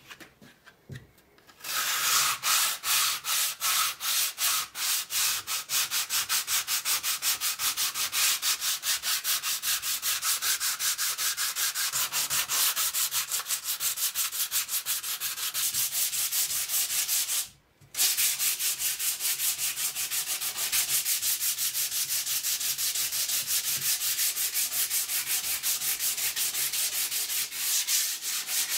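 Sandpaper rubbed by hand over the wooden body of a large hand plane, sanding down dried wood filler in rapid back-and-forth strokes. It starts about two seconds in and stops briefly for a moment about two-thirds of the way through.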